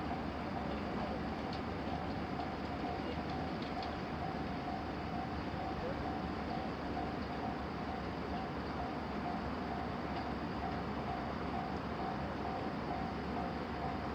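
Japanese railroad crossing alarm ringing, a single-pitched electronic tone repeating steadily on and off, over a continuous rushing noise.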